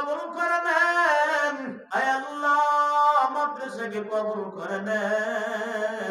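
A man chanting an Islamic supplication (munajat) in long, drawn-out melodic phrases, with a short break for breath about two seconds in.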